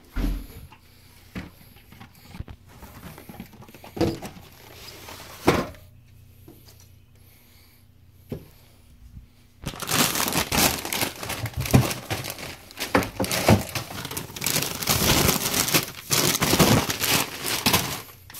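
A few scattered knocks as items are handled on a desk, then from about ten seconds in a continuous rustling and crinkling as a hand rummages through a brown paper grocery bag full of packaged snacks.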